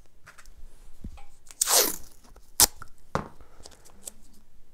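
Blue painter's tape being ripped off the roll: a short tearing rip about one and a half seconds in, then a sharp snap as the piece is torn off, with a second crack and light crinkling of the tape after it.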